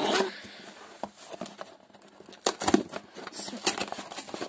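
Cardboard shipping box being handled and opened: irregular scrapes, taps and rustles as the cardboard flaps and packing paper are worked by hand, with the sharpest knocks about two and a half seconds in.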